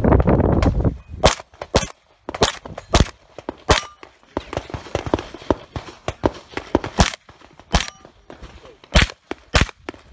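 Competition pistol shots, about ten fired one at a time, mostly in quick pairs with pauses between. A low rushing noise fills the first second.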